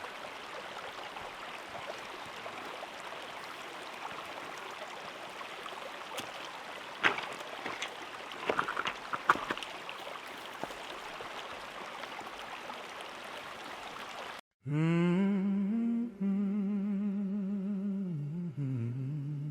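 Steady rushing of a stream, with a few sharp clicks near the middle. It cuts off abruptly and a low voice starts humming a wavering, drawn-out melody.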